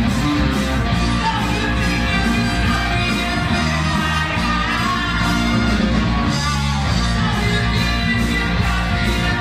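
Live rock music with singing and guitar, played by a band together with an orchestra.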